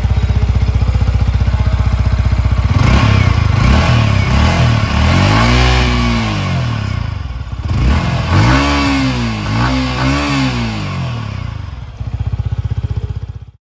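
Yamaha R15's single-cylinder engine running at idle, then revved three times: one longer rev about four seconds in, then two quick blips about eight and ten seconds in, the pitch rising and falling with each.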